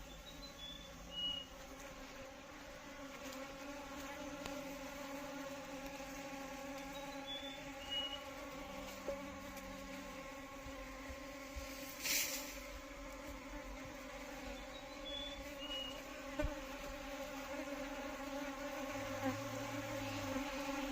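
Indian honey bees (Apis cerana indica) buzzing in a steady hum, with a short, sharp noise about twelve seconds in.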